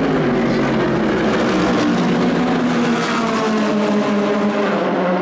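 Racing car engine running on the track, a loud, steady engine note with several pitched layers.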